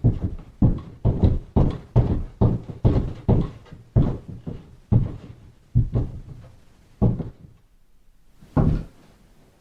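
A run of heavy, loud knocks or thuds, about two or three a second at first, then slowing, with a last single thud near the end.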